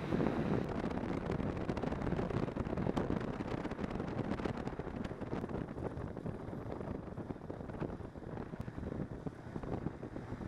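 Snowmobile engine running steadily while riding along a snow trail, heard from on board through heavy wind noise on the microphone, with a few scattered clicks and knocks from the ride.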